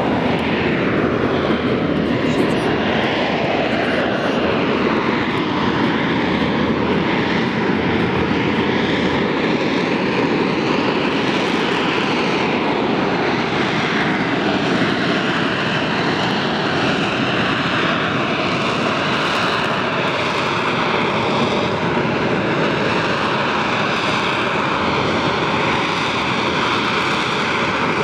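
AV-8B Harrier II jet engine running loud and steady throughout, a dense roar with whining tones that drift slowly up and down in pitch.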